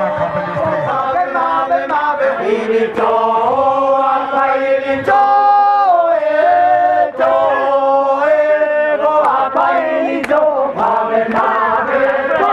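A group of men chanting a traditional Bajawa ceremonial song together, holding long notes that step and slide between pitches.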